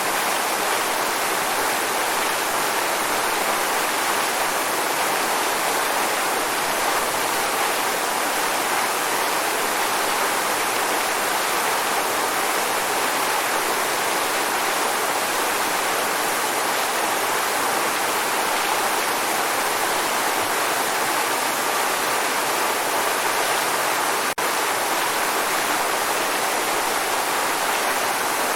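Waterfall: a steady, even rush of falling water, with one momentary dip in level near the end.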